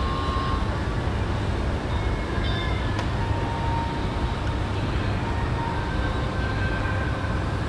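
Steady low rumble of restaurant background noise, with a faint click about three seconds in.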